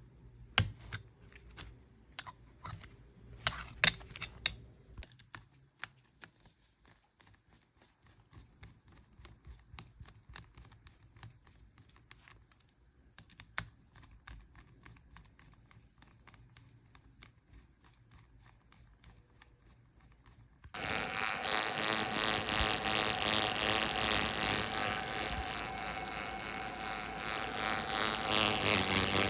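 Scattered small clicks and taps over a faint hum. About two-thirds of the way through, a loud steady buzz starts suddenly and runs on.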